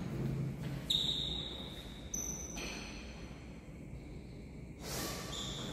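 Badminton rally: a racket strikes the shuttlecock sharply about a second in and again about two seconds in, each hit leaving a high ringing tone that fades out slowly.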